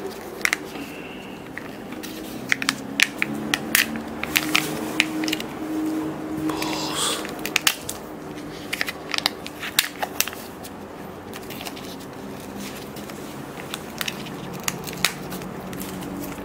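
Crackling and clicking of a Kinder Joy's plastic cup and foil seal being handled and the foil peeled back, with a longer rustle in the middle. A faint low hum runs underneath.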